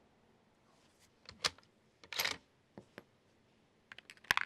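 Sharp metallic clicks and clacks of a bolt-action rifle being handled after a shot: the bolt being worked, then loaded cartridges clicking against each other in a plastic ammo box. A pair of clacks comes about a second and a half in, a longer clatter just after two seconds, and a quick run of clicks near the end.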